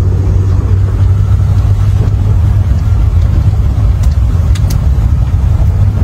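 Engine of the vehicle being ridden in running steadily under way, with a strong constant low hum and road rumble; two faint clicks about two-thirds of the way through.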